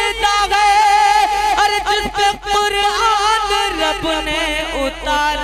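A man singing a naat (Urdu devotional song in praise of the Prophet) into a microphone, unaccompanied. He holds long notes and ornaments them with wavering turns of pitch.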